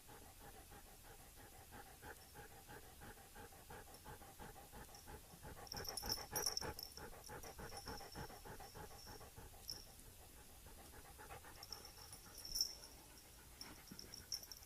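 A dog panting in quick, even breaths, about four a second. A few brief high-pitched sounds come around the middle and near the end.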